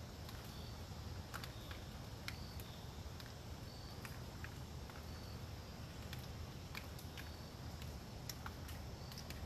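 Storm wind through forest trees, a steady low rush, with scattered sharp ticks like drops falling onto leaves and a few short high-pitched notes now and then.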